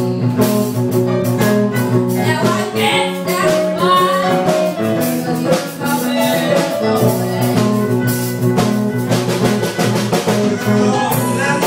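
Live band playing a blues number, with singing, guitar and keyboard over a steady beat.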